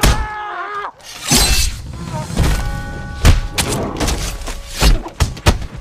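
Martial-arts film fight sound effects: a fighter's shout, then a rapid run of hard punch and kick impacts and crashing hits.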